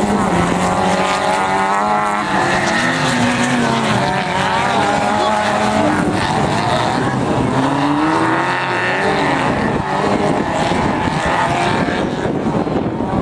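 Several autocross race cars' engines revving hard together on a dirt track, their pitch climbing and dropping again and again as the cars accelerate and back off.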